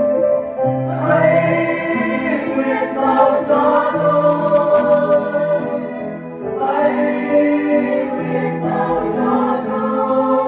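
Mixed choir of men and women singing a Vietnamese Catholic communion hymn in long held notes. A brief breath about two-thirds of the way through, then a new phrase begins.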